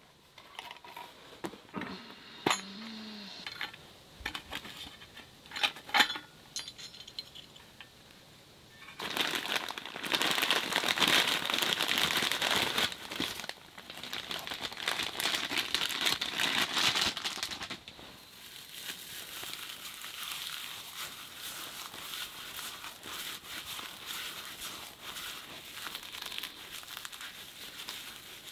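A few sharp clicks near the start, then loud crinkling of a clear zip-lock plastic bag as dry tinder is pulled from it. About halfway through this gives way to a softer, steady crackly rustle of dry grass and bark tinder being rubbed and crumbled between the hands.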